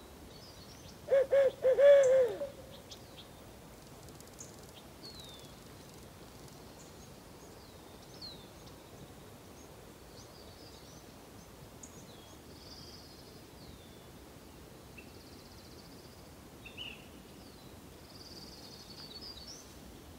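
A loud series of about five owl hoots lasting about a second and a half, the last note falling away, about a second in. Songbirds chirp faintly through the rest.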